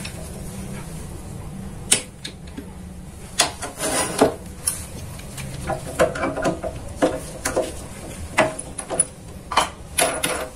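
Sharp metal-on-metal clinks and knocks from steel tools and parts being handled at a bench drill press and its steel vise, about a dozen irregular strikes, over a faint low hum.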